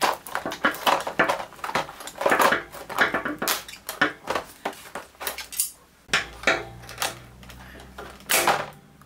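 Scissors cutting through a rigid clear plastic blister pack, a run of sharp snips and crackling plastic that eases off about six seconds in. Near the end there is one louder crackle as the cardboard backing card comes free of the plastic.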